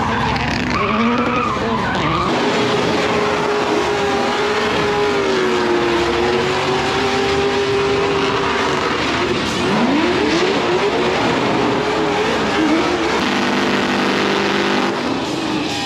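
Drift car spinning donuts at full throttle: the engine revs up and down while the tyres squeal in a long, wavering screech as they spin.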